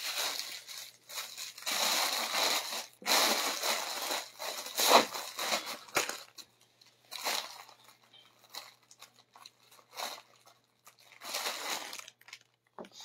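Clear plastic packaging bag crinkling and rustling in irregular bursts as a packed garment is picked up and handled, busiest in the first half and sparser toward the end.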